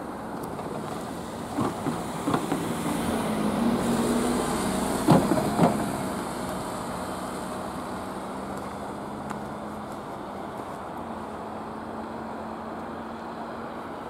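A car drives close past over a railway level crossing, its engine and tyre noise swelling and then fading. Its wheels knock over the rails, the loudest pair of thumps about five seconds in, half a second apart.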